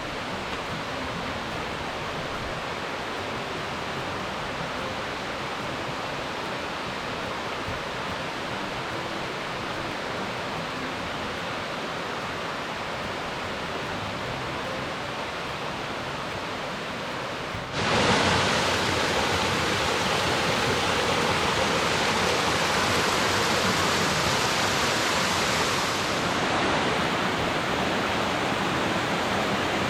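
Steady rushing noise of flowing water. It turns abruptly louder and brighter about eighteen seconds in, then eases slightly a little later.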